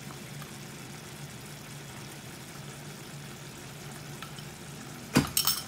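Pan of tomato-and-onion masala sauce simmering on the hob, a steady faint bubbling hiss with a low hum under it. About five seconds in, a brief loud burst of sound cuts across it.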